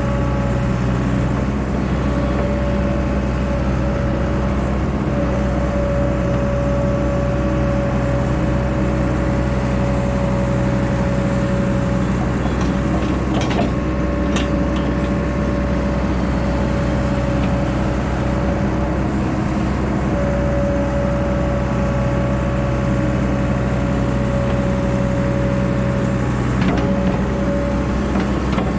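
Excavator's diesel engine running steadily under work, with a constant high hydraulic whine, and a few sharp metallic knocks about halfway through and again near the end.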